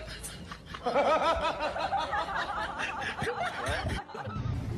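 Snickering laughter: a quick run of short, pitched 'heh' sounds, about five a second, starting about a second in and breaking off shortly before the end.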